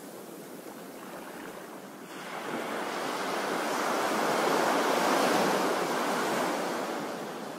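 Surf washing onto a sandy beach: a wave swells in about two seconds in, is loudest around the middle, then eases off as it runs up the shore.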